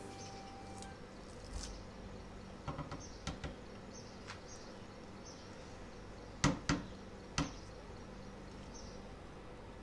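Scissors snipping through leafy green stems: a few soft snips about three seconds in, then three sharp snips between six and a half and seven and a half seconds. Behind it, faint insect chirping repeats at a regular pace.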